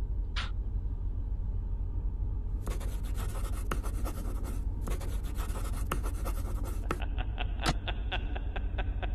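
Pen scratching across paper in quick strokes as a document is signed, over a steady low hum. The scratching turns duller and more evenly spaced near the end.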